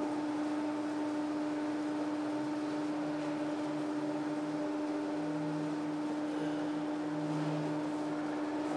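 Steady machine hum with one strong constant mid-low tone and fainter tones above it, and a fainter low drone that comes and goes from about three seconds in.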